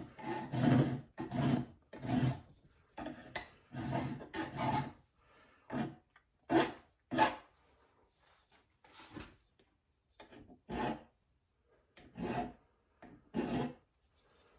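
Hand file strokes across a small brass wedge clamped in a bench vise, shaping it into a wedge. About twenty scraping strokes, close together for the first five seconds, then slower and further apart.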